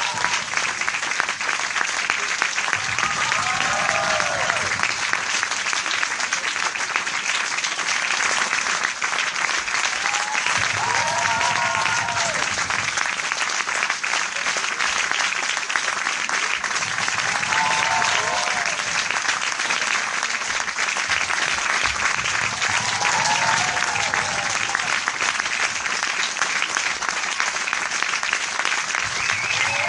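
Large crowd applauding, dense steady clapping throughout, with voices calling out briefly every several seconds.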